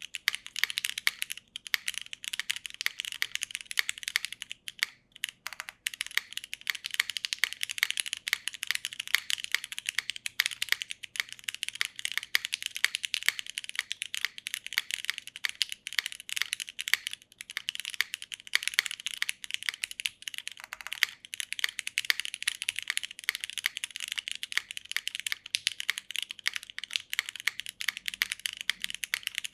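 Steady, fast typing on a custom mechanical keyboard with broken-in, lubed Cherry MX Black linear switches in an aluminum leaf-spring gasket-mounted plate, under GMK keycaps. It is a dense run of keystrokes, broken by short pauses around five seconds in and again past the twenty-second mark.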